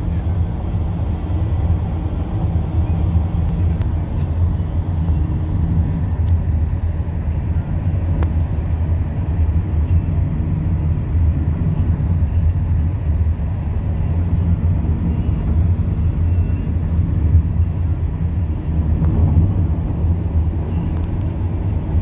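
Steady low rumble of a car driving, heard from inside the cabin: engine and road noise.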